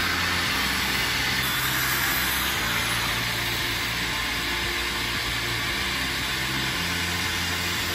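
Handheld power sander running steadily as it sands cured epoxy fairing compound on a fibreglass boat hull.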